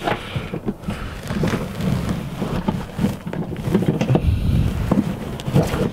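Hands working the anti-submarine strap of a six-point racing harness under a bucket seat: irregular rustling, knocks and clicks, with low rumbling bumps.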